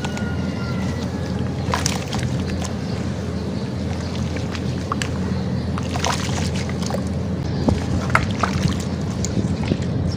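Hands stirring and kneading watery sand-cement slurry in a plastic basin, giving scattered wet splashes and squishes over a steady low rumble.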